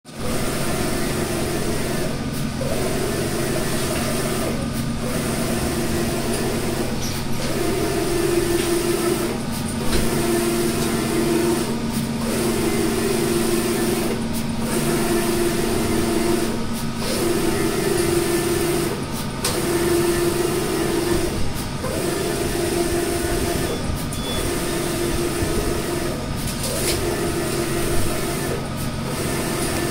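Large-format flex banner printer running: its print-head carriage shuttles back and forth across the media, one pass about every two and a half seconds with a brief stop at each end, over a steady machine hum.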